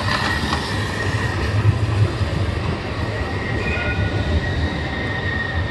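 CAF Urbos tram passing close by: a low rumble from its running gear, with one steady high-pitched squeal held for several seconds and falling slightly near the end.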